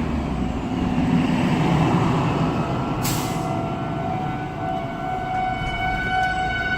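Steady low vehicle rumble with a brief hiss about three seconds in. Soon after, the steady tone of an outdoor warning siren being tested comes in and holds.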